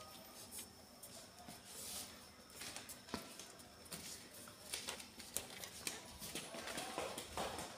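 Faint small clicks and soft rustling of newborn kittens nursing and shifting against their mother cat on a blanket.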